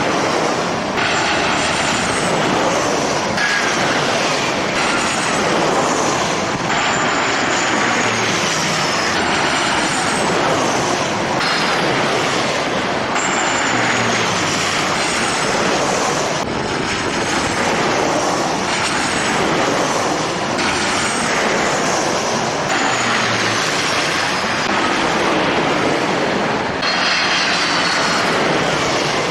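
Jet airliner engines running loud and steady, with high whines that fall in pitch again and again.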